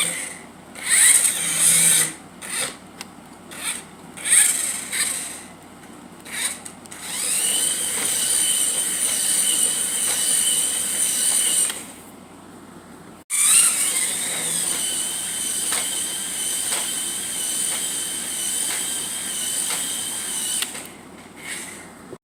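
A remote-control toy car's small electric motor and gears whirring, in several short bursts as it is driven, then running as a steady high whine for a few seconds. It cuts off abruptly about 13 seconds in, starts again with a brief rise in pitch and runs steadily for several more seconds.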